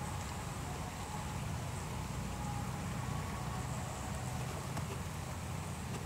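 Steady low rumble of outdoor background noise, with faint thin high tones above it.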